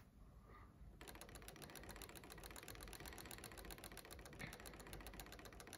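Mechanism of a LEGO Technic pendulum clock ticking faintly, rapidly and evenly, starting about a second in. The escapement is running fast because the pendulum has been removed.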